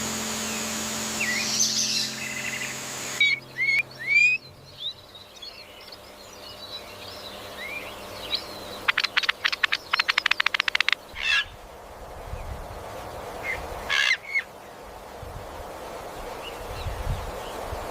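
Wild birds calling: short whistled chirps, then a fast rattling trill lasting about two seconds near the middle, and a few more calls later. The tail of a guitar music track fades out in the first few seconds.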